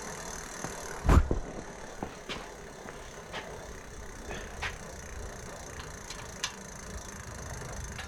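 E-bike rear wheel spun by hand to check the disc brake for rotor rub: a knock about a second in, then a steady low whirr with faint light ticks about once a second as the wheel turns.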